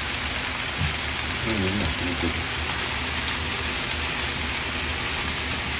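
Bitter melon, okra and onion sizzling steadily with fine crackling in a hot frying pan as they are stir-fried with a spatula.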